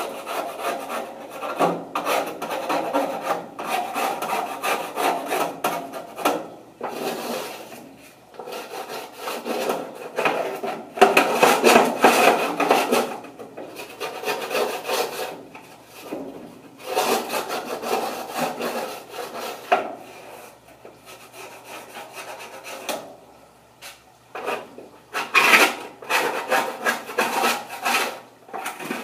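Lil Chizler scraper scraping caked grease and grime off the inside of an old grill after a spray of degreaser, in bouts of rasping strokes with short pauses between.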